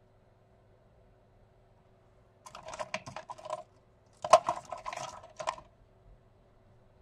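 Small metal tools being rummaged through, clinking and rattling in two short bursts, about two and a half and four and a half seconds in.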